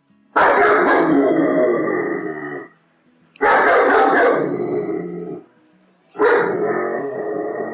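German Shepherd barking aggressively in three loud bursts, each about two seconds long, separated by short pauses. Faint background music can be heard in the gaps.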